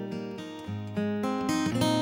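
Steel-string acoustic guitar fingerpicked with no singing, its plucked notes ringing on, with new notes struck about a second in.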